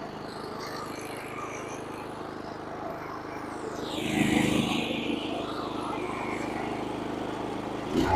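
Lawn mower running steadily while cutting grass, with a louder rushing swell about four seconds in and a sharp knock near the end.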